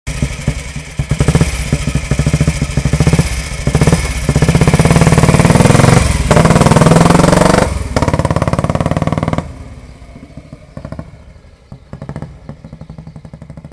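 A motorcycle engine running and being revved, its firing pulses quickening and rising in pitch through the middle. About nine and a half seconds in it drops back to a slower, quieter run.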